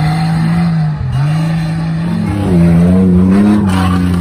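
Off-road 4x4 engine revving hard through the dirt course. The revs dip briefly about a second in, then climb again and peak in the second half.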